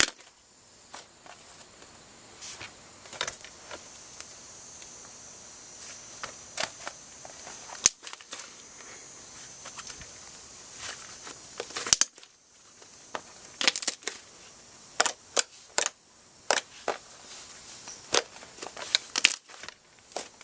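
Hands pressing and pulling a shaving-cream slime, giving irregular sharp pops and crackles, more often in the second half.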